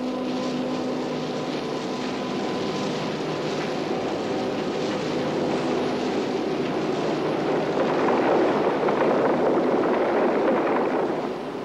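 Wagon tippler upturning a coal wagon: a steady machine hum with the rush of coal pouring out. The rush swells about eight seconds in and eases off shortly before the end.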